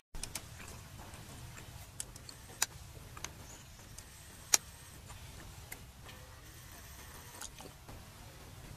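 Irregular sharp clicks and ticks, about half a dozen, the loudest about four and a half seconds in, over a steady low rumble.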